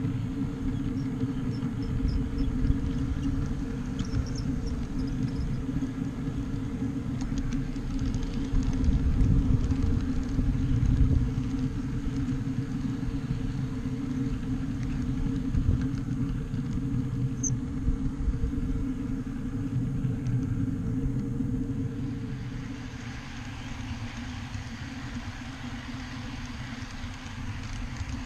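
Backyard ride-on scale train running along its track: a steady low rumble of wheels on rail with a steady hum. The sound thins and drops a little about 22 seconds in.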